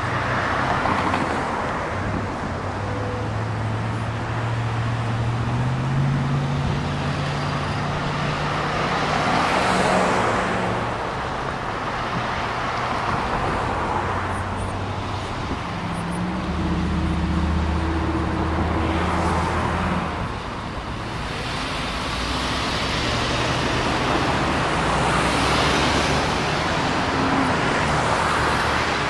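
Busy road traffic: a continuous stream of cars passing close by, tyre and engine noise swelling and fading with each vehicle, and a low engine hum at times.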